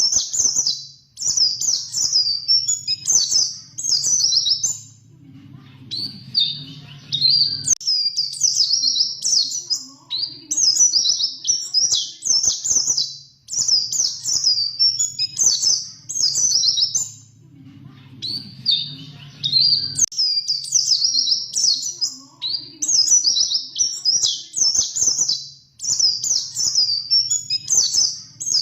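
White-eye (pleci) singing in rapid, high twittering phrases of about a second each, separated by short pauses. It is a looped recording, with the same sequence of phrases repeating about every twelve seconds.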